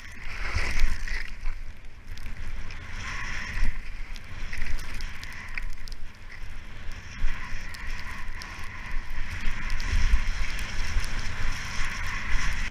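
Skis sliding and carving on fresh snow, a hissing scrape that swells and fades with the turns, over wind buffeting the microphone.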